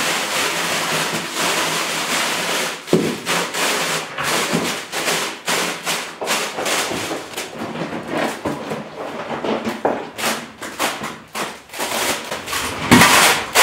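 Stiff tar paper being handled and pressed against a wooden wall, a steady crinkling rustle broken by scattered knocks and taps, with a sharper thump about three seconds in.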